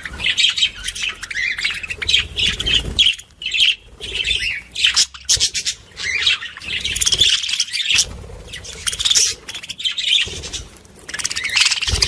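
Small birds chirping and squawking busily and without pause.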